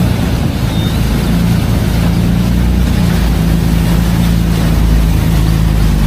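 Motorboat running fast through choppy water: a steady low engine drone under a broad rush of water and spray.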